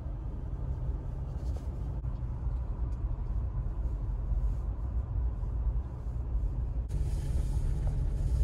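Steady low rumble of a Jeep Wrangler Rubicon driving, engine and tyre noise heard from inside the cabin. The sound changes abruptly about seven seconds in, turning a little louder with more hiss.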